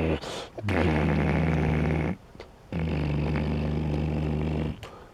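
A man's low, droning vocal noise, held at a steady pitch in three long stretches with short breaks, like a mouthed motor sound made while working a toy forklift.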